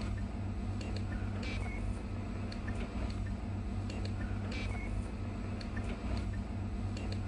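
Steady low electrical hum from an old video recording, with faint short clicks; the same pattern of clicks repeats about every three seconds.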